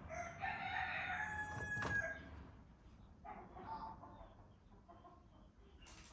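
A rooster crowing once: a loud held call of about two seconds, followed by a fainter call about three seconds in. A short sharp click near the end.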